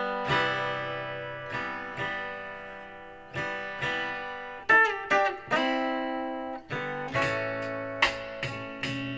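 Solo guitar playing slow chords, each plucked or strummed and left to ring and fade. A new chord comes every second or so, a little quicker near the end.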